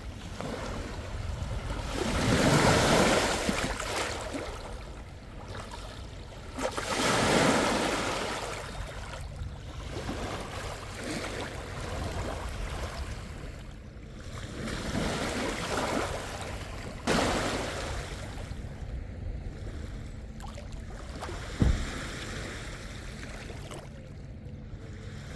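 Small lake waves washing onto a sandy shore, the noise swelling and falling back every few seconds, with wind on the microphone. A single sharp knock near the end.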